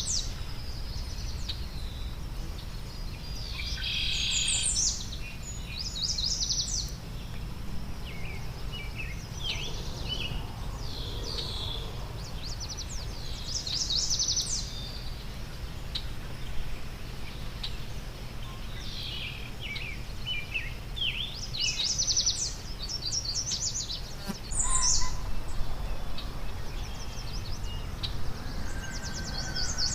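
Wild songbirds chirping and singing in short high phrases and quick trills, again and again, over a steady low background rumble.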